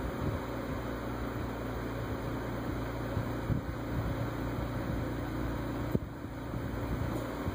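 Steady low hum with a hiss, and a single click about six seconds in.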